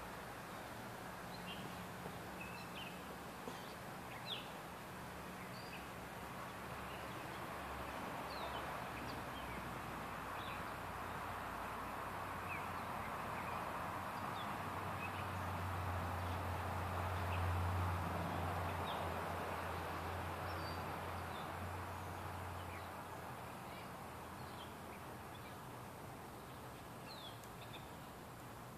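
Outdoor background sound: scattered short bird chirps over a steady hiss, with a low hum that swells through the middle and fades again.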